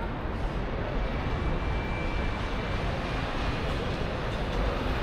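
Steady rumble of a canal tour boat under way, its engine running. A faint high whine comes through briefly about a second and a half in.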